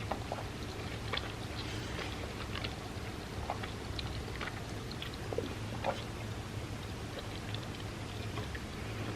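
Close-miked eating sounds: chewing hazelnut-cream wafer cereal in milk, with scattered small crunches and wet clicks. A faint steady hum runs underneath.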